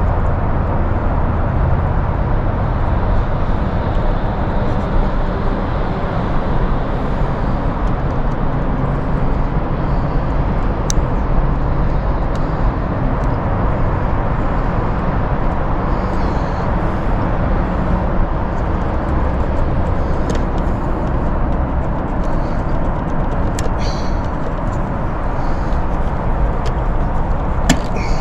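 Heat pump outdoor unit running with a steady, loud mechanical noise, with a few faint ticks now and then.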